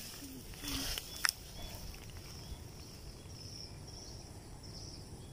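Outdoor ambience with insects chirring in a thin high band. A brief rustle and one sharp click come about a second in.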